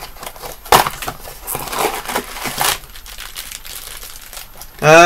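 Crinkling and tearing of a mystery mini figure's blind-box packaging being opened by hand, in irregular rustles, loudest in the first three seconds. Just before the end a person's voice starts a long, steady vocal sound.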